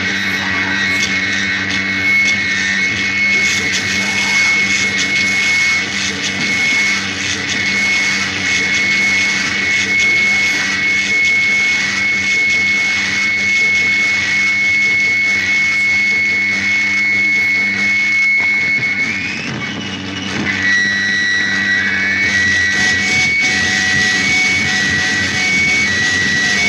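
Loud noise music: a dense wall of static and drone over a steady low hum, with a high whine held on one pitch. About twenty seconds in it dips briefly, and then the whine breaks into two high tones alternating on and off.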